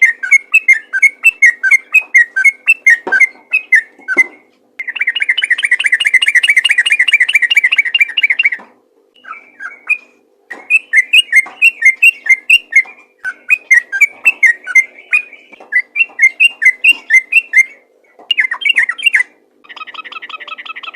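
Sooty-headed bulbul (trucukan) singing a loud, fast, continuous 'ropel' song of quick repeated whistled notes. About five seconds in it breaks into a long rapid trill, then goes on in phrases with short pauses, and near the end it turns to a buzzier, harsher call.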